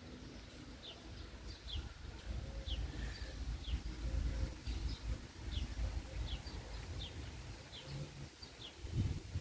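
A small bird chirping repeatedly, short high falling chirps about once a second, over a low background rumble.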